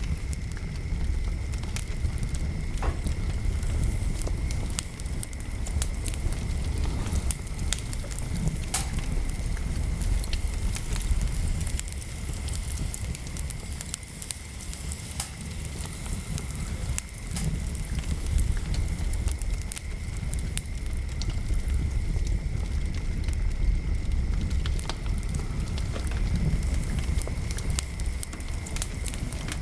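Wood fire crackling: frequent irregular pops and snaps over a steady low rumble.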